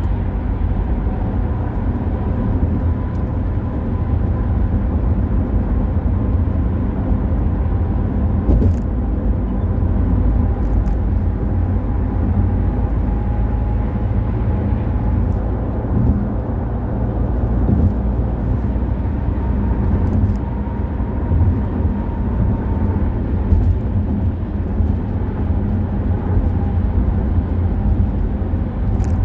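Car driving along a road, picked up by a dashcam microphone inside the cabin: a steady, continuous low rumble of road and engine noise.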